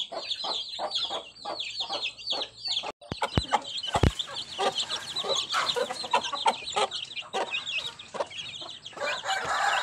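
Chicks peeping constantly, several high, falling cheeps a second, with a hen clucking among them. The sound briefly cuts out about three seconds in, and a couple of low thumps follow shortly after.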